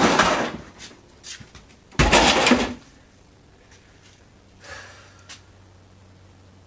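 Boots stomping on and crushing broken refrigerator parts: two loud crunches about two seconds apart, then a couple of faint knocks.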